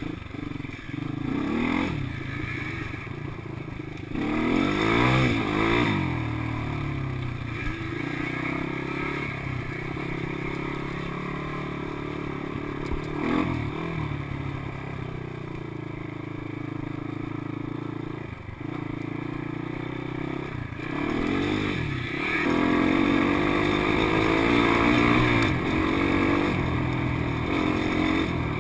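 ATV engine running under way, its revs climbing and dropping several times as the rider accelerates and eases off.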